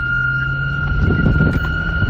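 A vehicle's engine rumbling, with a steady high-pitched tone held throughout and a louder burst of low rumble about halfway through.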